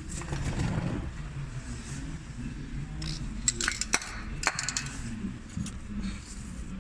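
Fiat Ducato engine running steadily after a new timing belt kit and water pump, with a few sharp metallic clinks about halfway through.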